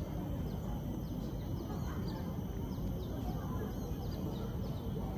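Birds chirping in the trees, a busy run of short, quickly falling high notes repeating throughout, over a steady low background rumble with faint distant voices.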